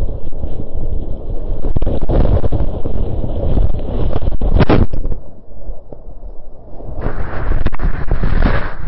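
Whitewater rapids rushing and splashing around a kayak, with water slapping the microphone and heavy buffeting. About five seconds in the sound goes muffled and quieter for about two seconds, then the full rush returns.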